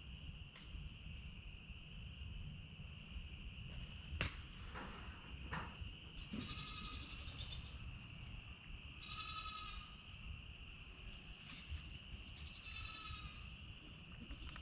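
Nigerian dwarf goats bleating: three high calls of about a second each, spaced a few seconds apart, with a sharp knock about four seconds in and a steady high hum underneath.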